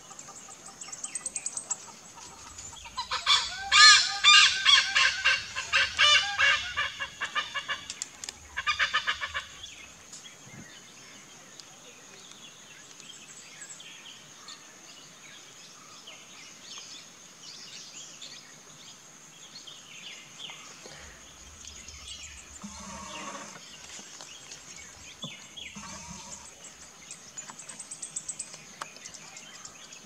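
Oriental pied hornbill calling: a loud rapid run of harsh, honking notes a few seconds in, a shorter burst near the ninth second, and fainter calls later on.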